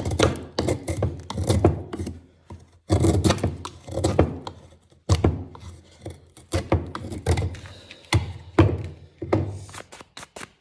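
A 1075 steel knife whittling wood: repeated irregular cutting and chopping strokes of the blade biting into the wood, in quick clusters with short pauses between.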